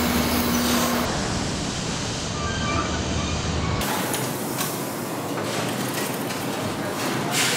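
Foundry and factory machinery noise: a dense rushing, clattering din with a steady hum that stops about a second in. The sound changes abruptly several times, cut together in segments.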